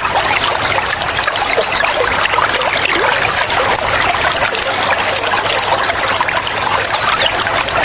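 Steady running water, with a small bird singing two fast, high trilling phrases over it, one about half a second in and another about five seconds in.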